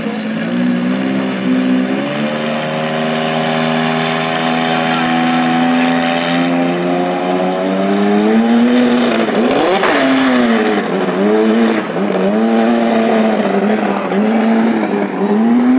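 Race car engines running, the pitch climbing steadily for several seconds, swinging sharply about ten seconds in, then rising and falling in repeated revs before climbing again near the end.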